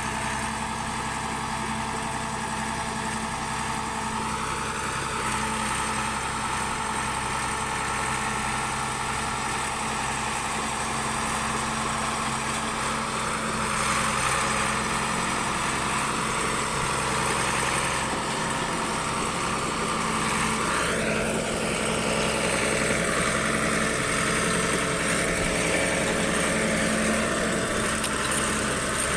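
Engine of a diamond drilling rig running steadily as the rig moves, its note shifting slightly a few seconds in and again about two-thirds of the way through.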